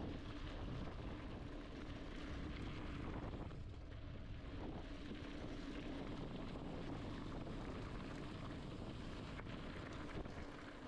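Mountain bike on Continental Cross King tyres rolling steadily over gravel and dry leaves, with wind noise on the microphone and a faint steady hum underneath.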